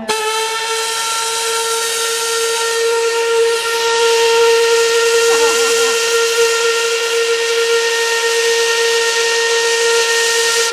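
Steam sawmill's steam whistle blowing one long, steady note over a hiss of escaping steam, about ten seconds long, starting and stopping abruptly; the whistle signals the start of the mill's run.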